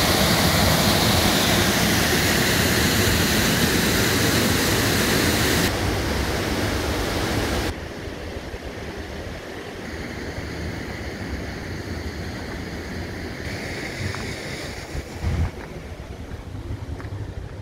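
Waterfall rushing steadily and loudly. About six seconds in it eases a little, and about eight seconds in it drops sharply to a softer, more distant rush. A brief thump comes near the end.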